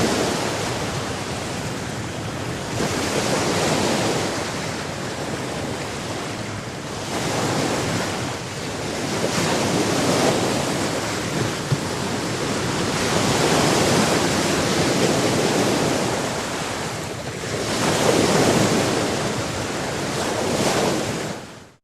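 Sea waves washing in, a rushing noise that swells and ebbs every few seconds, fading out at the very end.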